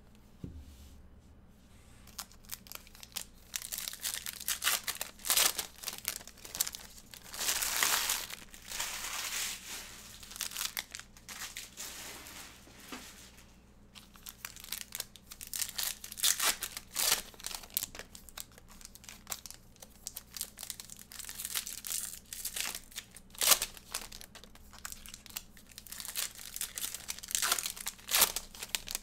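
Foil baseball card pack wrappers crinkling and tearing as packs are ripped open, in repeated crackling bursts that start about two seconds in, with a short lull midway.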